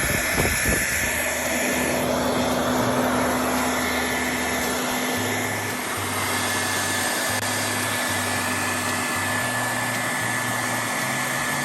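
Hair dryer blowing steadily with a thin whine, drying a wet plush toy. Background music with low bass notes plays underneath.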